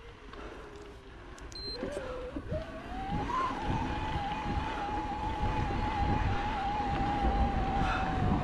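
Electric mountain bike's Shimano EP8 mid-drive motor whining under pedal assist, its pitch climbing about three seconds in and then holding steady as it gets louder, over tyre and wind noise.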